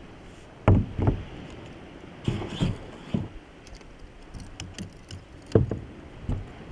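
Irregular dull thumps and knocks, about six in a few seconds, from a small rental kayak being handled, over a steady background hiss.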